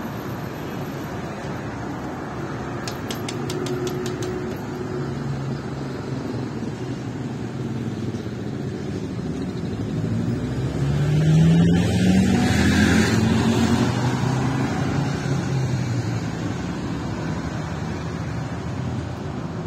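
Steady city street traffic. About ten seconds in a motor vehicle drives past, its engine rising in pitch as it accelerates, the loudest moment. A short run of quick ticks sounds about three seconds in.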